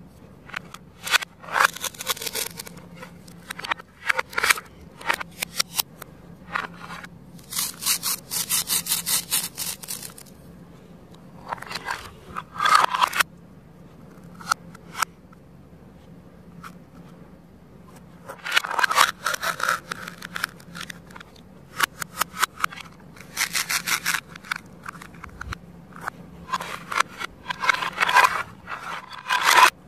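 Velcro-joined plastic toy fruit halves being pulled apart with a scratchy tearing and pressed back together, mixed with clicks and taps of hard plastic pieces on a plastic cutting board. It comes in several bursts with short quiet gaps, the longest run of tearing about eight seconds in.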